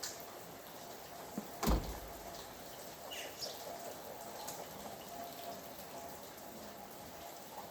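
Steady rain with drops dripping and pattering, one loud thud of a drop about two seconds in, and a short bird chirp a little later.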